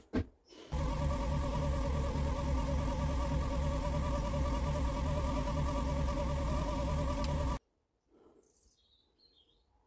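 Hoverboard hub motor spun by a pedalled spin bike, running as a generator under electrical load: a steady buzzing whine over a low hum. It starts abruptly about a second in and cuts off suddenly about two seconds before the end.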